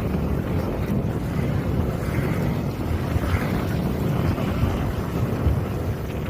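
Wind buffeting the microphone aboard a sailboat under way, a dense, steady low rumble with water washing past the hull beneath it.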